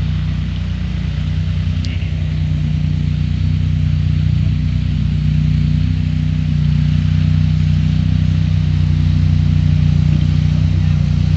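Engine of a 6x6 amphibious ATV running steadily as it drives through a flooded track, growing slowly louder as it approaches. A brief click comes about two seconds in.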